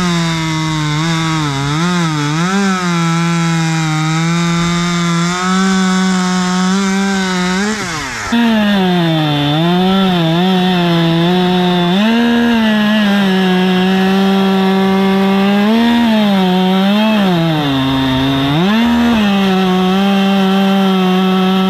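Husqvarna T540 XP Mark III 40cc top-handle chainsaw running at high revs and cutting wood, its engine pitch repeatedly sagging under load in the cut and picking back up. About eight seconds in it drops and revs back up, then runs louder.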